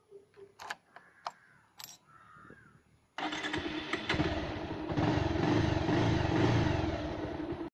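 A few small clicks, then about three seconds in a motorcycle engine starts and keeps running steadily.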